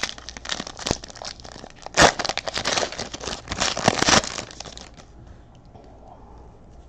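Trading-card pack wrappers being torn open and crinkled, a dense crackling with a few sharp rips, for about five seconds before it dies down.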